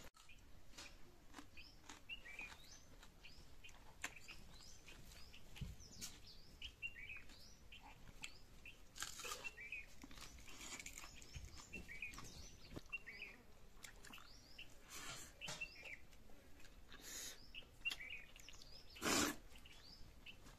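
Small birds chirping again and again, faint, with soft noises of eating by hand: rice being mixed with the fingers and chewed. A brief louder rustling noise comes near the end.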